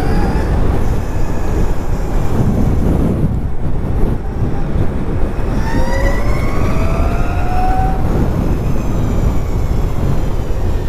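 Zero FXS electric motorcycle accelerating. Its electric drivetrain whine rises in pitch near the start and again from about six to eight seconds in, over heavy wind rumble on the microphone.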